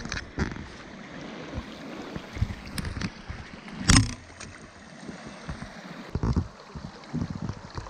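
Shallow rocky stream running steadily, with several sharp knocks and splashes; the loudest comes about four seconds in.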